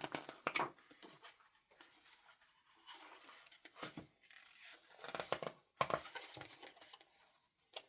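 Paper and packaging rustling and crinkling in irregular bursts as items are lifted out of a box and handled.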